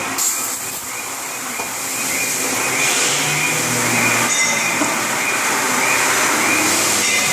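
CNC machine running, a steady loud mechanical noise with a faint regular pulse about twice a second.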